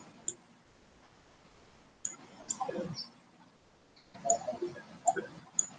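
Light, scattered clicks and taps of a stylus on a pen tablet while writing, with a stretch of near quiet between about half a second and two seconds in.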